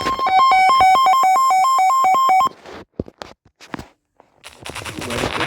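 Emergency Alert System alert tone announcing a severe thunderstorm warning: a loud electronic two-tone alarm warbling rapidly between two pitches, cutting off sharply about two and a half seconds in. A few faint clicks and near quiet follow, and a recorded voice starts near the end.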